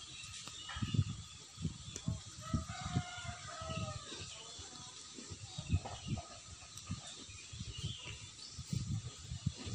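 A rooster crowing once, a drawn-out call of about two seconds starting a couple of seconds in, over irregular low thumps on the microphone.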